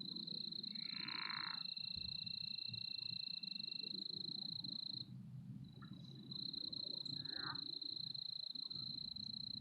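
Frogs calling around a pond: a steady, high-pitched trill that stops for about a second midway and then resumes, over a low rattling chorus.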